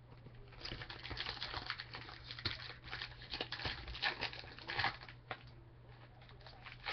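Foil trading-card pack crinkling as it is torn open and handled by hand, from about half a second in to about five seconds, then softer, over a low steady hum.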